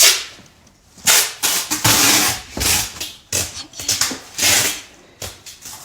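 Tape being pulled off a roll in about six short rasping strips, one after another.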